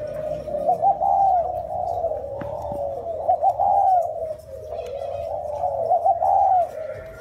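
Spotted doves cooing, a full cooing phrase about every two and a half seconds, three in all.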